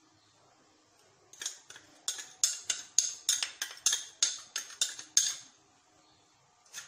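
Metal spoon scraping and clinking against a small glass bowl in a quick run of about fifteen sharp strokes, roughly four a second, as thick flavoured milk is scraped out into flour.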